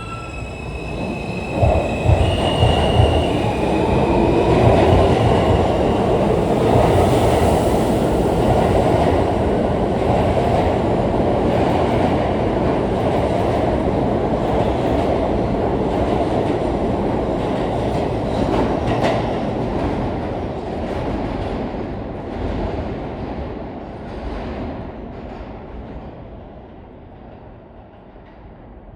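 R160 subway train pulling out of the station. Its traction motors whine upward in pitch as it accelerates, and the wheels rumble and clack along the rails. The noise grows loud within the first few seconds, holds steady, then fades away over the last third.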